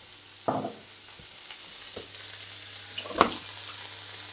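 Cauliflower florets frying in hot oil in a stainless steel frying pan, a steady sizzle that grows a little louder. Two sharp metallic knocks, about half a second and about three seconds in, as the pieces are moved around the pan.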